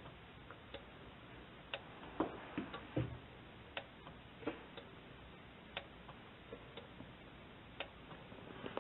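Solenoids driving a small swimming turtle robot's flippers, clicking as they work: a sharper click about every two seconds with fainter ones in between.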